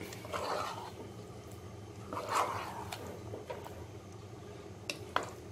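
Spatula stirring chunks of chicken in a thick masala in a pot: a few soft, wet scraping swishes, with a sharp tap near the end, over a steady low hum.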